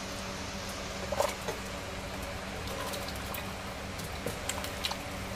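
Spatula stirring a big pot of thick soup, with scattered light scrapes and knocks against the metal pot over a steady simmering hiss.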